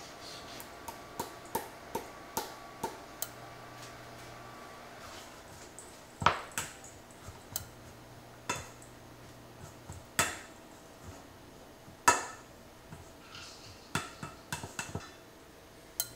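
A rice paddle knocking and scraping against a stainless steel mixing bowl as rice is stirred. First comes a quick run of light taps, then a few louder knocks that ring briefly, the loudest about six, ten and twelve seconds in.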